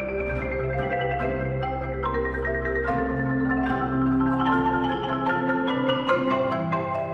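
Background music led by mallet percussion, a marimba or xylophone playing a melody of struck notes over a sustained bass line.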